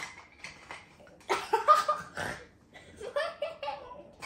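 Children laughing and giggling in short bursts, in two clusters about a second and three seconds in.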